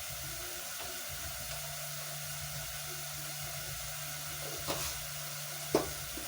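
Beef, broth and spices frying in a cooking pot with a steady sizzle, and two short knocks near the end.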